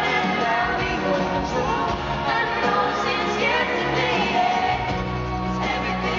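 Live pop duet: singing over two strummed acoustic guitars, heard from out in the arena audience.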